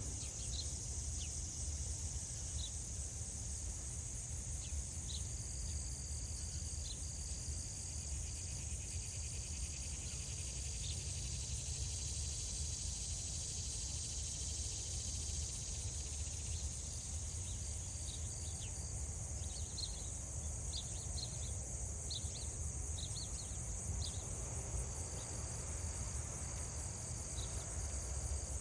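Steady high-pitched chorus of crickets or other night insects, with short chirps scattered through it, over a low rumble.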